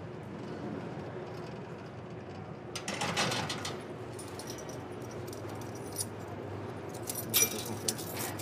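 Metal handcuffs and chain restraints jangling and clicking as they are unlocked and pulled through cell bars, in a burst about three seconds in and again with sharp clicks near the end, over a low steady hum.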